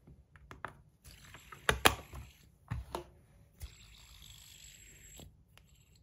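Metal clicks and knocks from handling a stainless steel Fidget HQ Quasar spinner, loudest just under two seconds in. A steady whir from the spinner's hybrid bearing spinning runs under them and cuts off suddenly about a second before the end.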